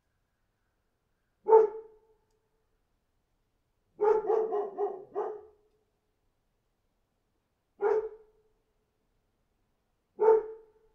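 A dog barking in separate outbursts with silence between: one bark, then a quick run of about six barks, then two more single barks a few seconds apart.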